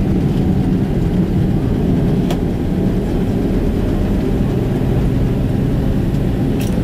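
Cabin noise of a Boeing 767-300 rolling along the runway after touchdown, spoilers raised: a steady low rumble of engines and wheels. Two brief clicks come about two seconds in and near the end.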